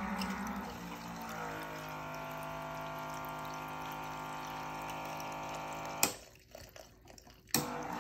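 BEV by Black+Decker cocktail maker dispensing an old fashioned: its pump runs steadily as a stream of liquid pours from the spout into a glass of ice. The flow stops with a click about six seconds in and starts again about a second and a half later.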